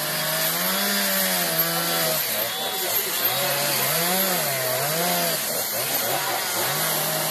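Chainsaws carving wood, the engine pitch rising and falling over and over as the throttle is worked.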